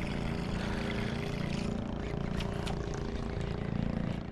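An engine running steadily with a droning hum, swelling a little near the end.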